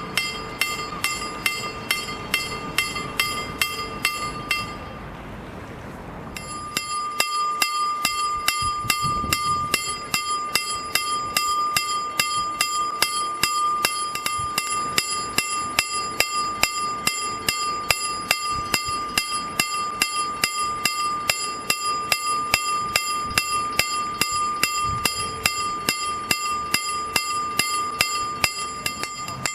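KLD-40 electric railway-crossing bell striking rapidly, about three clear ringing strokes a second, warning that the crossing is closed for a train. The strokes break off for about two seconds about five seconds in, then carry on at the same pace.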